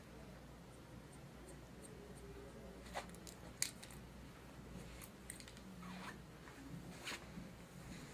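Dry finish hair shears snipping through hair: a handful of separate sharp snips, the loudest about three and a half seconds in, over a faint low hum.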